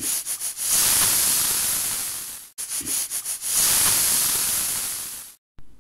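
10-litre stovetop pressure cooker whistling twice: each whistle opens with a few quick puffs, then steam hisses out steadily for about two seconds and fades. This is the cooker at full pressure, and two whistles are the cue to turn off the flame.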